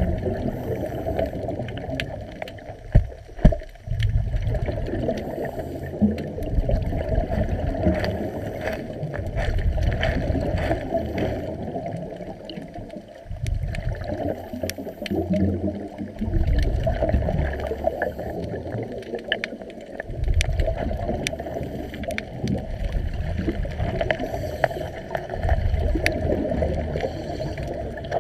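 Underwater noise of a diver's exhaled bubbles gurgling in surges every few seconds, with scattered small clicks.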